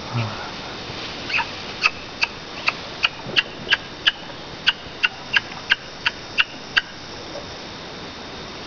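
Woolly monkey giving a rapid series of about fourteen short, sharp calls, evenly spaced at roughly two and a half a second. The calls begin about a second in and stop a couple of seconds before the end.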